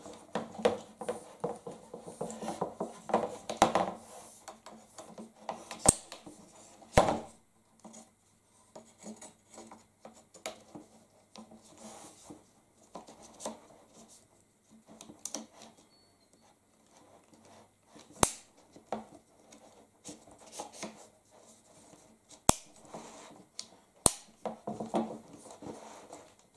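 Shooting-stick poles being handled and fitted together on a wooden table: scraping and rubbing of the tube sections, broken by a handful of sharp clicks and knocks as parts snap into place or tap the tabletop.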